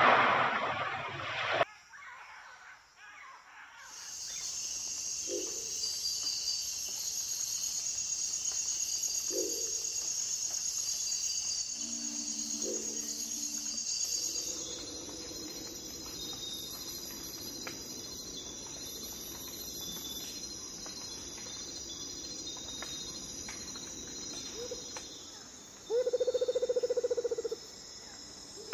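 A proboscis monkey hits the river with a loud splash lasting about a second and a half. Then a steady high-pitched chorus of rainforest insects runs on, with a few short low calls in the middle and a louder rapid pulsing trill for over a second near the end.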